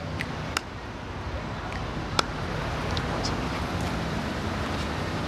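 City street ambience: a steady low traffic rumble, with a couple of sharp clicks about half a second and two seconds in.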